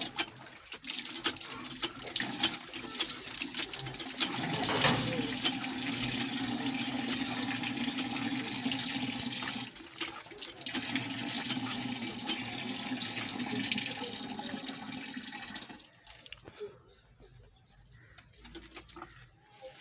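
Water gushing from the spout of a hand pump and splashing over hands being washed beneath it. The flow breaks off briefly about ten seconds in, then runs again, and it dies away to quiet near the end.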